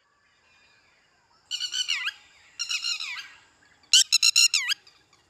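Three bursts of shrill animal calls, each a rapid run of high notes ending in a falling glide, the third the loudest.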